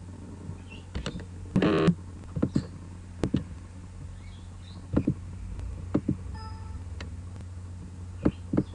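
Scattered computer mouse clicks, about eight of them at uneven intervals, over a steady low electrical hum. There is a louder, longer noise about two seconds in.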